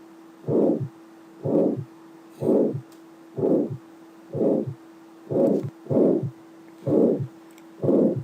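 Heart sounds of aortic stenosis through a stethoscope: a harsh, crescendo-decrescendo systolic ejection murmur, repeating about once a second with each beat. A steady low hum runs underneath.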